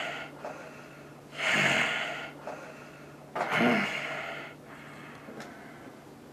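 A person breathing heavily: three loud, noisy breaths about two seconds apart, the last with a little voice in it.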